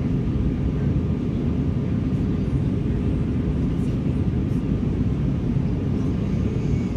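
Airbus A320 in flight: a steady low rumble of engine and airflow noise with a faint steady whine above it.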